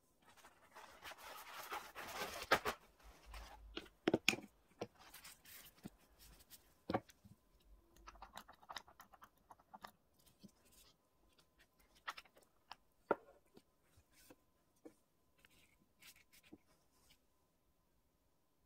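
Small plastic cosmetic jars and a nail brush being handled on a table: a stretch of rustling and scraping in the first few seconds, then scattered light clicks and taps of jar lids and containers being opened, set down and picked up.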